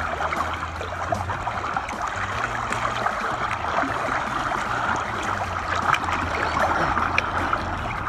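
Pool water swishing and splashing steadily as a rubber clog is pushed by hand along the surface.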